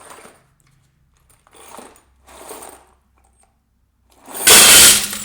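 Nails poured into a small bucket as foley for cereal falling into a bowl, clattering in a few short bursts and then one much louder clatter near the end. The nails come out in clumps rather than one by one.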